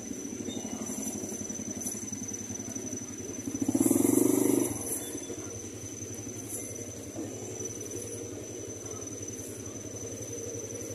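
A small motor vehicle engine passing by, loudest about four seconds in and then fading, over a steady thin high-pitched tone.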